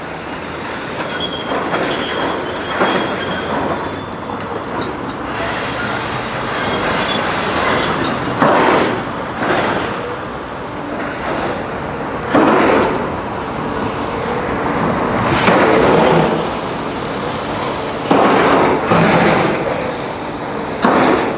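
Heavy excavators demolishing a concrete structure: engines running under repeated loud grinding, scraping crashes of concrete and steel, coming every one to three seconds in the second half.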